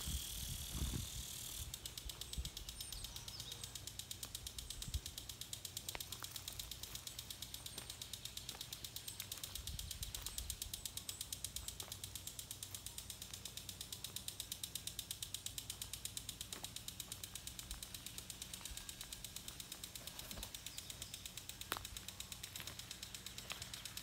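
A fast, even ticking over a faint low hum, with a couple of isolated knocks.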